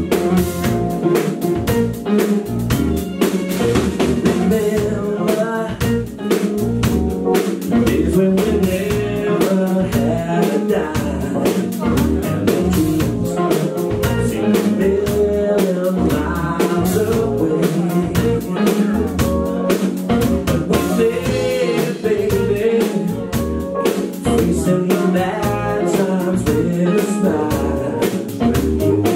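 Live band playing with a steady drum beat, bass, electric guitar and keyboards, with singing voices over the top.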